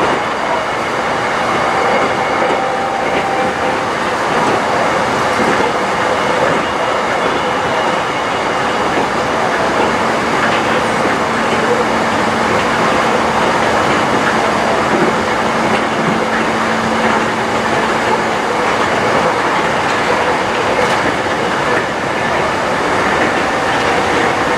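Running noise inside the carriage of an electric train moving at speed: the steady rumble and hiss of wheels on the rails, with a faint steady hum for several seconds in the middle.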